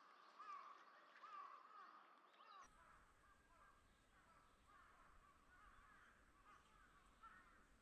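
Faint wild bird calls: a short rising note repeated about once a second, then after a cut about two and a half seconds in, softer scattered chirps.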